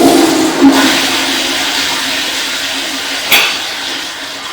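Pressure-assist toilet flushing: a sudden loud rush of water that slowly fades, with a brief sharp knock about three seconds in.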